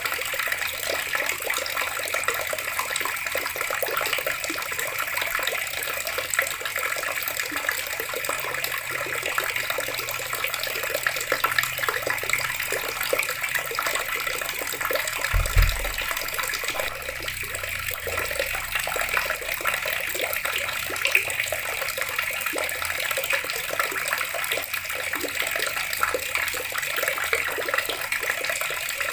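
Water running steadily from a tap and splashing, an even rushing hiss. A brief low thump sounds about halfway through.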